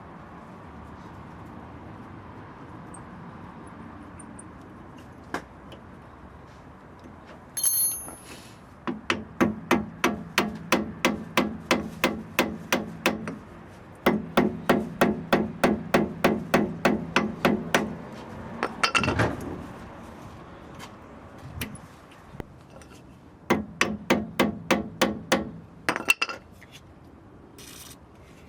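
Hammer tapping rapidly on a seized brake caliper bleed screw to shock it loose after heating. The taps come in three runs of about four to five light metallic strikes a second, each with a short ring.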